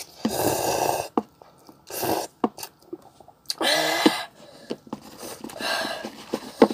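A person's sharp, breathy puffs of air through the mouth, four of them, one carrying a short voiced sound, reacting to the burn of spicy fire noodles. A few small clicks fall between them.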